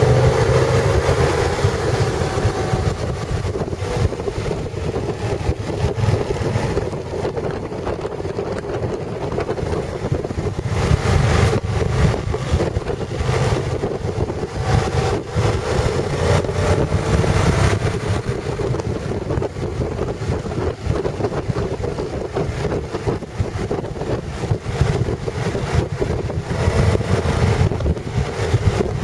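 Motorcycle engine running at road speed, its pitch drifting up and down a little, under a steady rush of wind on the microphone.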